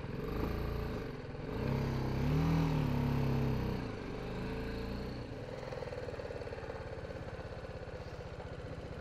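BMW G 310 GS single-cylinder motorcycle engine pulling slowly up a rough lane, its pitch rising and then falling about two seconds in. It settles into a steady idle after about five seconds as the bike stops.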